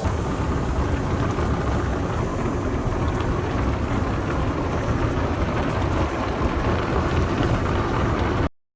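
A vehicle on the move: a steady rumble of road and engine noise with hiss over it. It cuts off abruptly to silence near the end.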